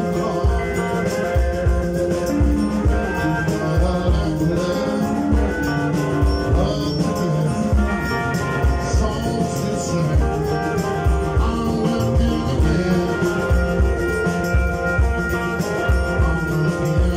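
Live band playing amplified music: electric guitars, electric bass and drum kit with a steady beat, and a male lead vocal.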